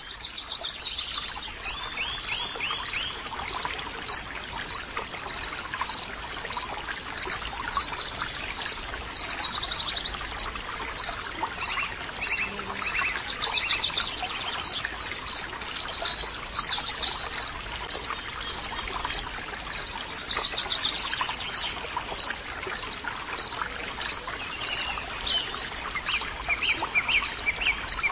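Running water, like a stream, flowing steadily with birdsong over it: one bird repeats a short high note at an even pace, a little faster than once a second, while other birds add trills and chirps.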